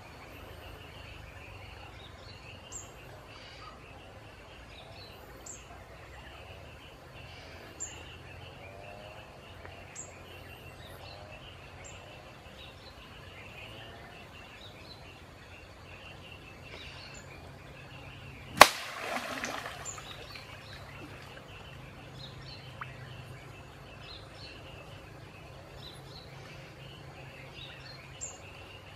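Stream-side outdoor ambience with birds chirping, and about two-thirds of the way through a single sharp smack on the water followed by about a second of splashing.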